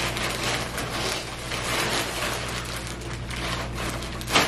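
Plastic mailer bag crinkling and rustling as clothing is pulled out of it, with one sharp, louder crackle near the end.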